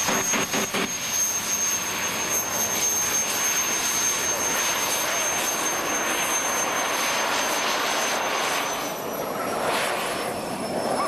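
Small jet engine of a jet-powered portable-toilet vehicle running, a steady high whine over a hiss of exhaust. The whine falls slightly in pitch over the last two or three seconds.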